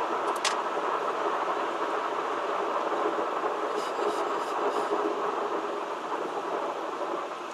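Steady road and wind noise heard inside a moving car's cabin, with a few faint ticks.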